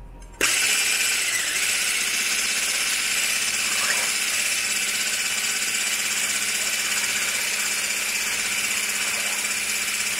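Immersion blender with a whisk attachment switched on about half a second in, its motor running steadily as the whisk beats raw egg whites in a stainless steel bowl toward a bubbly froth.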